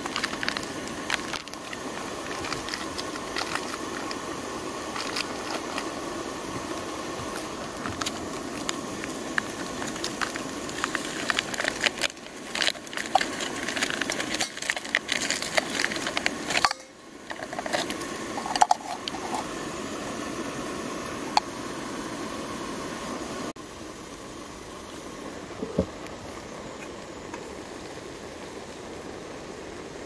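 Foil sachet crinkling and tearing as it is opened, and its contents shaken into a steel mug, over a steady hiss. The crinkling stops about two-thirds of the way through, and the hiss goes on a little quieter.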